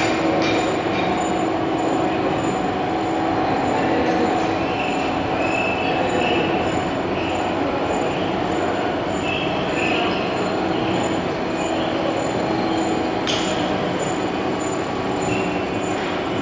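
Horizontal boring and milling machine machining metal: a steady, dense machine noise with a held hum, and short high-pitched squeals now and then through the middle.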